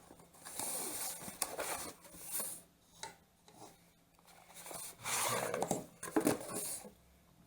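Packaging rustling and rubbing in several irregular bursts as the soldering station and its parts are handled and unpacked.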